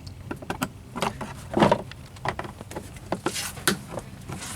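Plastic trim pieces and push-in clips being handled and fitted by hand: irregular clicks, taps and scraping, with louder rustling about a second and a half in and again around three and a half seconds in.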